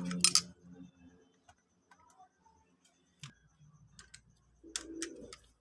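Light metallic clicks and taps of hand tools on a motorcycle engine's valve gear while the valve clearance is set with a feeler gauge. There is a quick cluster of sharp clicks at the start, then scattered single clicks.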